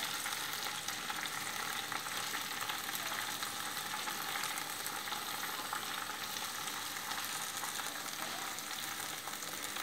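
Gongura (sorrel) leaves frying in hot oil in a pan: a steady sizzling hiss with small crackles.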